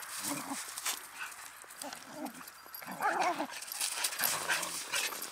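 Two keeshonds play-fighting, giving short low growls and then higher, louder yips about three seconds in, with light scuffling in the snow.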